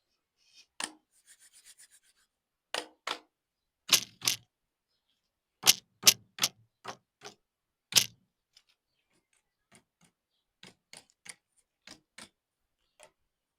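An uneven series of sharp taps and clicks of hard objects being handled, about fifteen in all. The loudest fall in the middle of the stretch, and fainter, sparser ticks follow near the end. There is no sound of pouring or fizzing.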